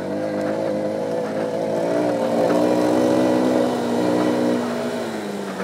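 Single-cylinder dual-sport motorcycle engine pulling steadily under load, its revs rising a little about two seconds in and then easing off gradually near the end.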